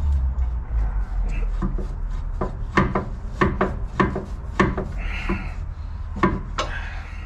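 Steel suspension parts knocking and scraping as the front steering knuckle and hub are wiggled by hand to line the strut up with the spindle. Irregular clicks and knocks start about two seconds in, with a short scrape about five seconds in, over a steady low hum.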